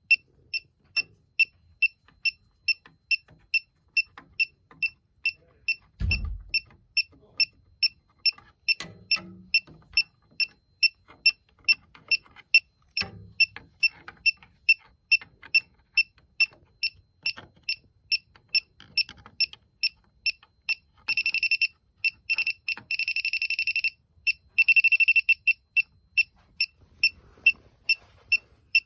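Elitech WJL-6000 refrigerant leak detector beeping at about two high beeps a second, speeding up to rapid, almost continuous beeping for a few seconds past the middle, the sign of the sniffer picking up refrigerant, then settling back. A low thump about six seconds in.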